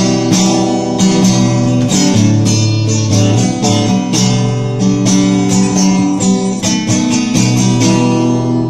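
Acoustic guitar strumming chords in the instrumental ending of a song, with no singing.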